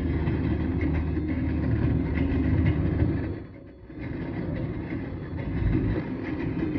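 Steady rumble of tyres and engine from a moving car on a city road, dipping briefly about three and a half seconds in.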